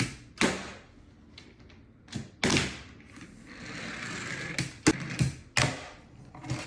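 Handboards (palm-sized skateboards) knocking and clacking down on a hard surface: about eight sharp knocks spread unevenly, with a soft scraping hiss a little past the middle.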